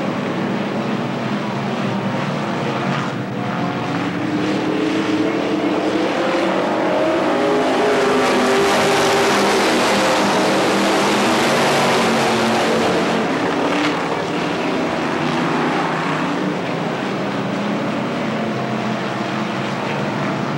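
Engines of a pack of dirt-track stock cars racing around the oval, growing louder as the field passes close by from about seven to thirteen seconds in, then fading back.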